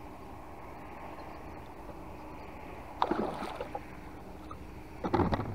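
Gill net being hauled by hand into a small wooden boat: a steady low wash of water, then two sudden splashing bursts, one about three seconds in and one near the end.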